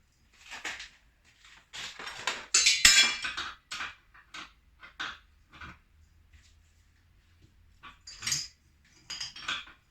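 Metal parts and hand tools clinking and scraping against each other while a part is worked loose from an old motorcycle rear shock during disassembly. Irregular clinks, loudest in a grinding stretch about three seconds in, with a few more near the end.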